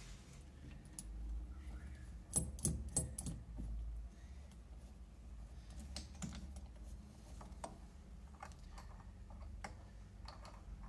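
Light clicks and taps of small chrome metal fittings being handled and fitted onto a threaded stub in a wooden panel: a quick run of four or five clicks about two seconds in, then scattered single clicks.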